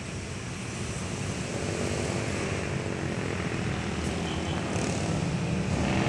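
A motor engine drone that grows steadily louder, with a low rumble and a faint steady hum in it.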